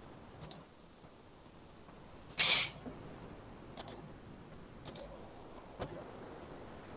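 Scattered faint clicks as a computer's mouse and keyboard are worked, four or so spread over several seconds, with a short burst of hiss about two and a half seconds in that is the loudest sound.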